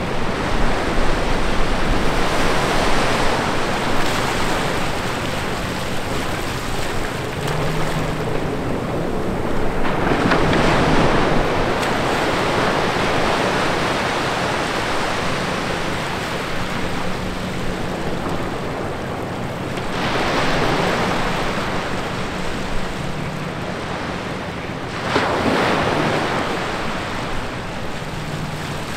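Small ocean waves breaking and washing up over wet sand between rocks, a constant surf noise that swells as each wave comes in, about four times.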